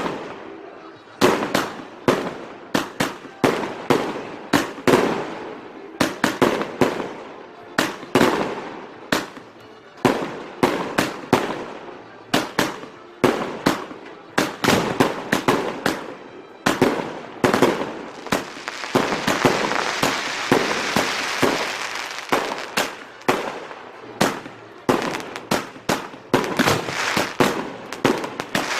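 Fireworks going off in a long run of sharp bangs, about one or two a second, each trailing off in an echo. In the middle there is a stretch of dense crackling hiss of several seconds.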